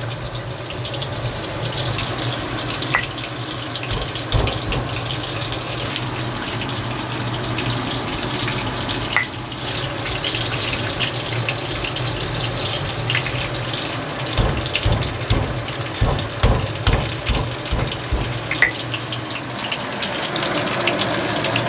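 Stone pestle grinding chillies and spices in a stone mortar (ulekan and cobek), with a run of irregular knocking strokes in the later part, over a steady rushing hiss.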